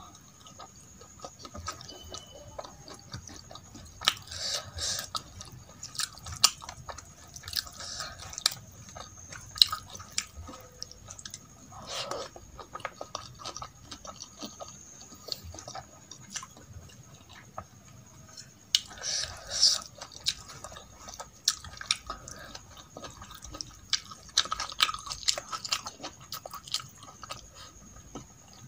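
Close-miked wet chewing and mouth sounds of a person eating soft rice and dal by hand, a scatter of small clicks with a few louder bursts of smacking. Fingers scoop and mix the rice on a steel plate.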